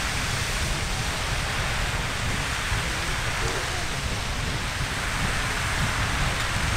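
Riverside Geyser erupting: a steady rushing hiss of its water jet and falling spray, with no break or change.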